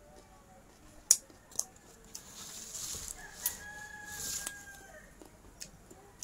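A rooster crowing once in the background, one long call held for about two and a half seconds, starting about two seconds in. A few sharp clicks, the loudest about a second in.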